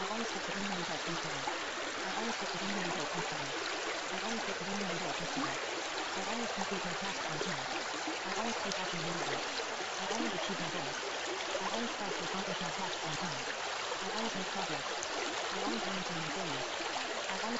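Steady rushing noise of flowing water, with a faint, low voice murmuring continuously beneath it: the quiet, masked affirmations of a subliminal audio track.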